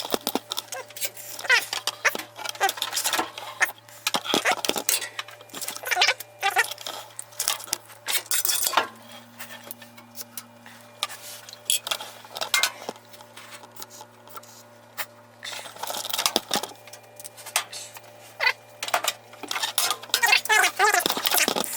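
Irregular metallic clinks and clanks of tools and metal washer parts being handled, with a steady low hum underneath.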